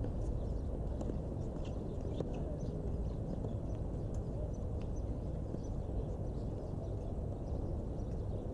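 Steady wind rumble on the microphone, with a few faint knocks of tennis ball strikes and bounces during a rally.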